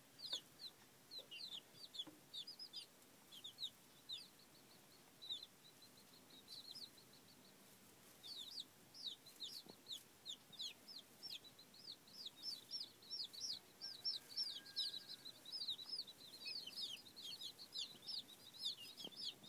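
Young chicks peeping: short, high, downward-sliding peeps, scattered in the first half and coming almost nonstop, several a second, from about eight seconds in.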